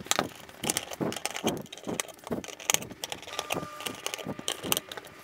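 Irregular clicks, taps and clinks of a Pegasus Astro filter wheel's metal housing and its small screws being handled and taken apart on a table.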